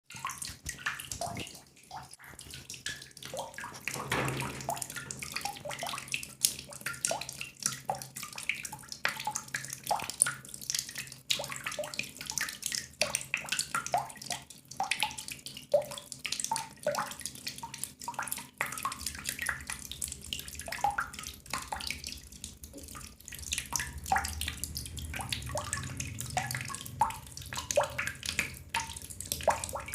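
Water drops falling into water: many short, irregular plinks, several a second, over a low steady hum.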